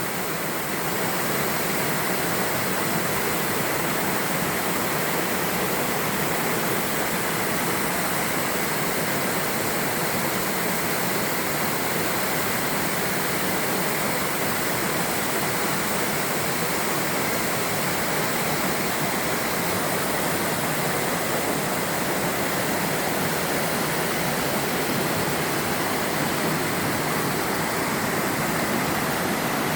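Waterfall in a mountain stream valley, water pouring over rock with a steady, unbroken rush.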